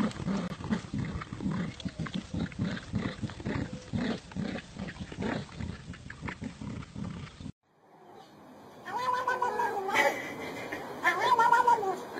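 Dogs growling in rapid, rough pulses while tugging on a toy; after a brief gap, a domestic cat gives two long, wavering yowls.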